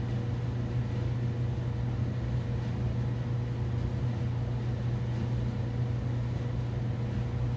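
Steady low machine hum with a faint constant tone over it, unchanging throughout.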